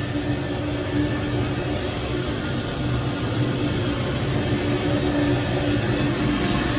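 Steady running noise of an oil-fired hydronic boiler plant, its burner and circulator pumps, with a constant low hum and a steady higher tone over an even rush.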